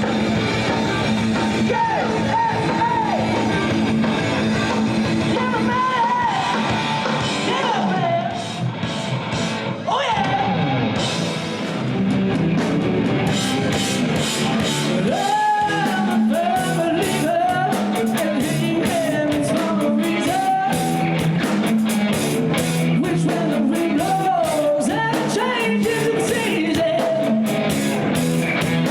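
A rock band playing with a lead singer and guitar. The drums and cymbals get busier about halfway through.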